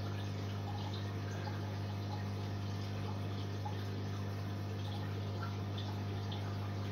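Sumped aquarium running: a steady low hum from its water pump, with water trickling and dripping.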